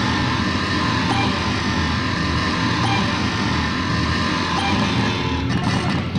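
Circuit-bent electronic instruments putting out a dense, steady noise drone, with a faint high blip repeating three times, about every second and a half to two seconds. Near the end the drone thins out.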